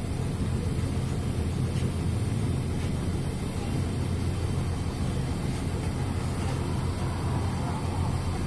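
MAZ-103 city bus running steadily, heard from aboard: a low, even engine drone with road and body noise over it.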